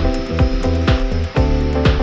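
Background music with a steady beat: deep bass drum hits about twice a second over sustained chords.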